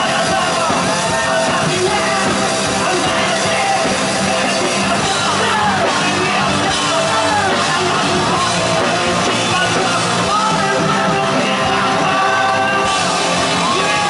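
Loud live rock band: a male singer sings into a handheld microphone over electric guitar, the sound staying dense and steady.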